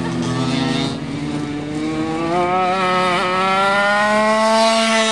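Go-kart engine revving up, its pitch climbing steadily for about four seconds as the kart accelerates, over another engine's steady note.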